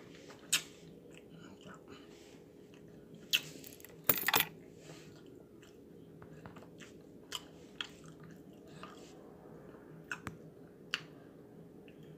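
A few short clicks and crackles at irregular intervals, a cluster of them about four seconds in, over a faint steady hum.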